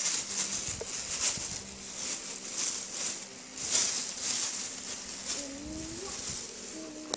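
Rustling and handling of school supplies and a cloth backpack: soft scratchy rustles every second or so over a steady hiss, with a faint wavering voice-like tone near the end.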